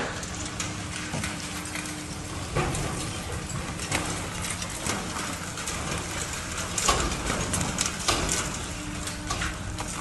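High-reach demolition excavator's jaw attachment breaking up the top of a concrete tower: irregular cracks and knocks of concrete snapping and rubble falling, the loudest cluster near the end, over a steady engine hum.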